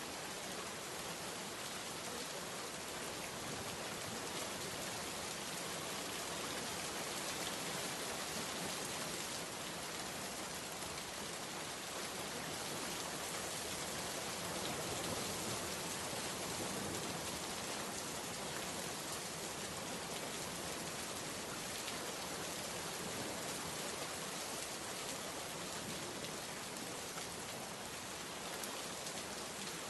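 Steady rain falling: an even hiss that does not change.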